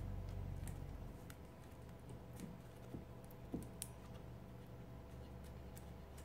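Faint, scattered clicks and taps of fingers handling a picture frame and pressing glued comic paper onto it, a few sharper ticks in the middle, over a steady low hum.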